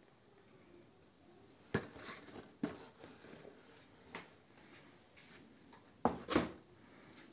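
Cardboard model-kit boxes being handled and shifted: a few soft taps and rustles, with a louder cluster of two or three knocks near the end.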